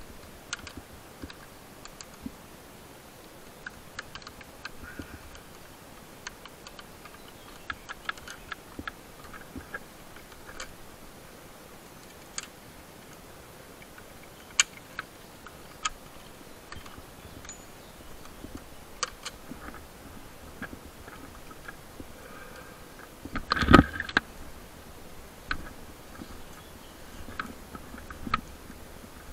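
Scattered light clicks and rustling from something being handled, with one louder knock about two-thirds of the way through.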